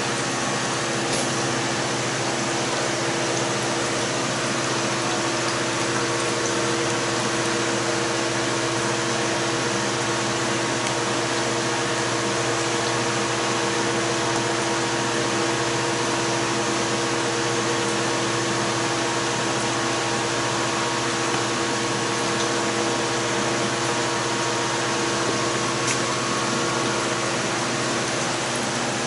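A steady machine hum with several constant tones under an even rushing noise, unchanging throughout.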